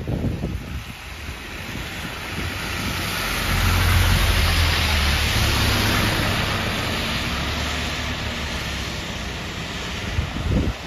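Alexander Dennis Enviro400H City hybrid double-decker bus driving past on a wet road: a swelling hiss of tyres on the wet surface with a low engine hum, loudest about four to six seconds in, then fading as the bus pulls away.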